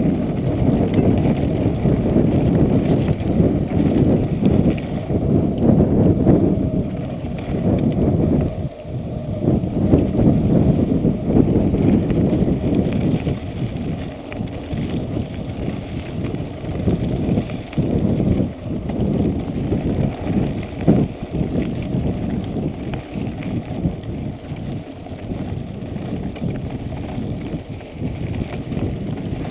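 Mountain bike rolling over a rough dirt trail: a low, fluctuating rumble of wind buffeting the microphone and tyres on dirt, with frequent knocks and rattles from the bike over bumps. It eases off somewhat in the second half.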